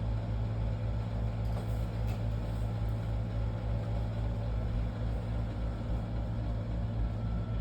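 Steady low hum of room background noise, with a faint high steady tone coming in near the end.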